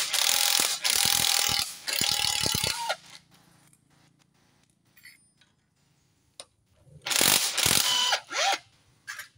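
Hand ratchet wrench clicking rapidly as the footrest mounting bolts are worked loose. There is a long run of ratcheting over the first three seconds, a pause, then another run about seven seconds in.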